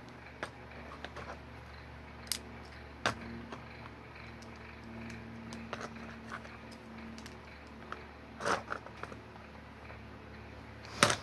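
Lego bricks clicking and rattling as a small brick-built figure is handled and its parts are moved into place: scattered small clicks, with louder clatter about eight and a half seconds in and the loudest near the end.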